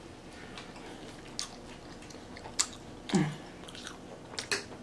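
A person chewing a mouthful of food with wet smacks and sharp mouth clicks, loudest about three seconds in.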